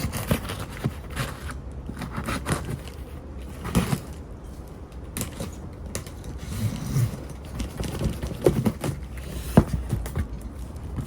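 Cardboard shipping box being opened by hand: irregular crackling and rustling of cardboard and packing material, with scattered sharp clicks and knocks.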